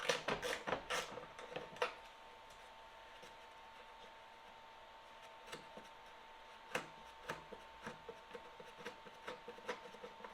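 Hand work on a snowblower's metal parts: a quick run of clicks and scrapes for about the first two seconds, then scattered light clicks and taps over a faint steady tone.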